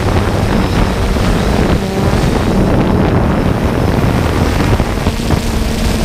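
Quadcopter drone's propellers humming steadily, with wind rushing over the microphone.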